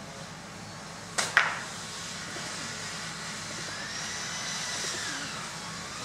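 Steady outdoor background noise with two sharp clicks in quick succession about a second in. Near the end, a faint drawn-out tone rises and then falls.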